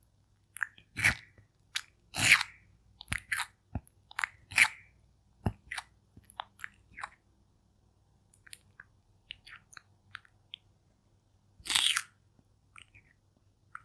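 Pet turtle biting into and crunching food in close-up: sharp separate crunches about a second apart in the first six seconds, then small scattered clicks with a short pause, and one more loud crunch near the end.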